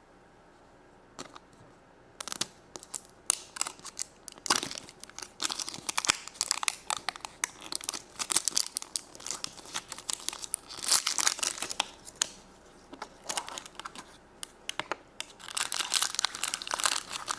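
A crinkly wrapper being handled and torn open to unwrap a toy Easter egg: irregular crinkling and tearing that starts about a second in, pauses briefly near the end and then resumes.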